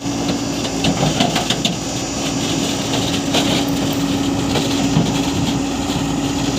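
Excavator's diesel engine running steadily, with a few sharp metallic clanks about a second in and again after about three seconds.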